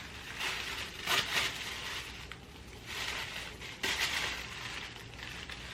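Rustling and crinkling as a wig and its packaging are handled and unfolded, in several short bursts about a second apart.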